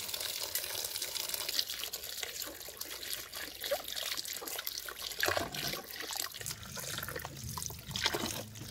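Water running from a tap, with small splashes and scattered light knocks.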